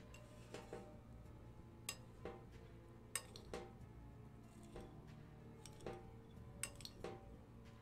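Metal spoon clinking against a clear glass mixing bowl while stirring a chunky chickpea and potato mix: about ten light, irregular clinks, each with a brief glassy ring.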